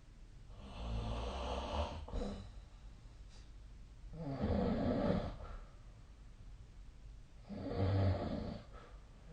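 A person snoring in their sleep: three snores, each about a second long and about three and a half seconds apart.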